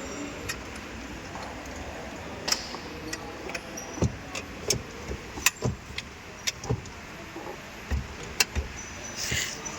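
Irregular sharp clicks and knocks of parts and tools being handled while a car's steering column assembly is fitted back in place, about ten in all. Near the end comes a short hiss.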